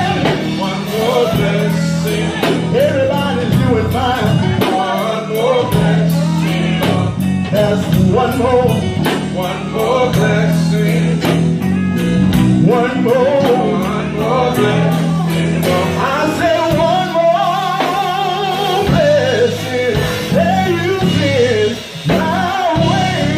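Live gospel song: a man singing into a microphone, backed by electric guitar and a band with a steady beat.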